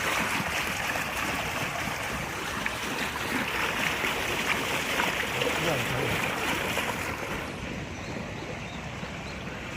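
Steady rush of water in a rain-swollen irrigation channel that is overflowing its banks; the rush grows duller near the end.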